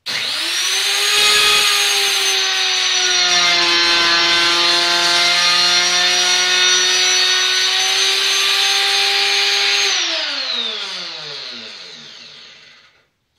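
Router with a 3/8-inch cove bit, mounted in a router table, switched on and spinning up to full speed, then running with a steady high whine as it cuts a pass through wood. About ten seconds in it is switched off and winds down with a falling whine.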